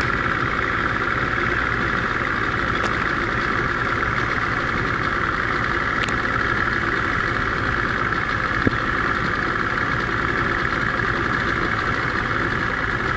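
Boat motor idling steadily, an even mechanical hum. A single brief knock sounds about two-thirds of the way through.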